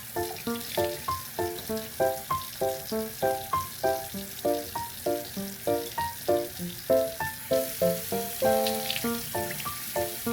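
Background music: a light melody of short plucked or keyboard notes, about three a second, over a steady hiss, like sizzling or running water, that cuts off suddenly at the end.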